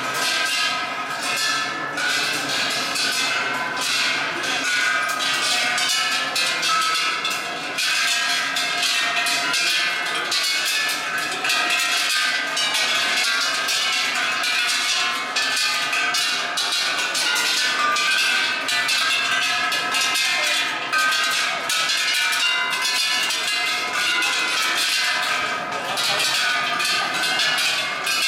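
A row of large hanging temple bells being struck by many passers-by with small sticks, the strikes coming thick and irregular and overlapping with the bells' ringing.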